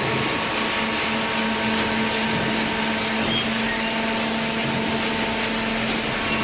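Automatic baler for plastic and cardboard running: a steady machine hum over a continuous hiss.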